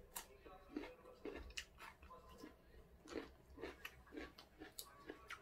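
Faint chewing with small wet mouth clicks, irregular, about two or three a second: a person eating boiled shrimp.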